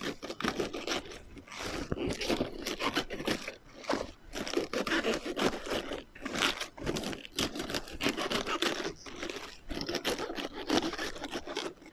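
Knife cutting the core out of a raw head of cabbage: irregular crisp crunching and crackling of the firm leaves, with the blade scraping.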